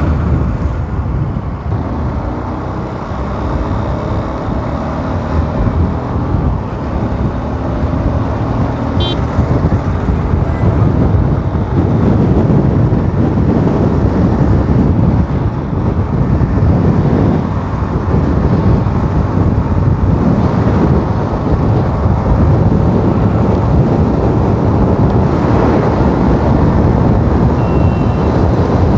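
Motorcycle engine and road noise heard from the rider's seat while riding in traffic, growing louder about twelve seconds in.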